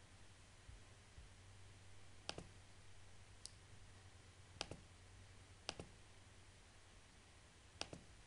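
Computer mouse button clicks: about five sharp clicks at uneven gaps of one to two seconds, most heard as a quick double of press and release, over a faint low hum.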